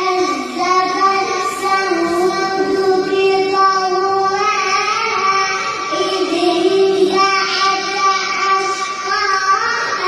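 A child's high voice chanting Quran recitation in long, drawn-out melodic phrases, notes held and gliding with only brief breaks between them.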